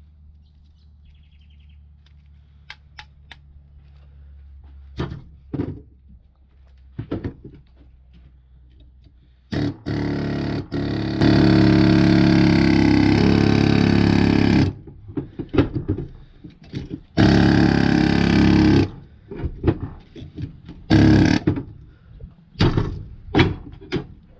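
Handheld pneumatic air hammer running hard in two long bursts, about five seconds and then about a second and a half, cutting copper windings out of an electric motor stator. Short sharp clicks and knocks of metal snipping and tapping come before and after.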